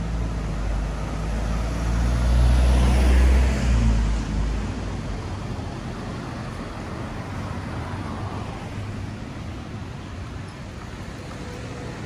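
A motor vehicle drives past close by. Its engine hum and tyre noise swell to a peak about three seconds in and then fade into steady street traffic noise.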